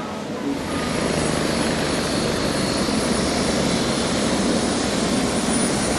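Loud, steady engine noise that swells in about half a second in and holds, with a faint high whine over it.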